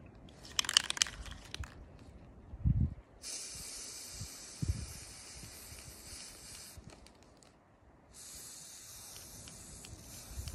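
Aerosol spray-paint can hissing in two long sprays, the first from about three seconds in to near seven seconds, the second from about eight seconds on. A brief clicking rattle from the can comes just before, about half a second in.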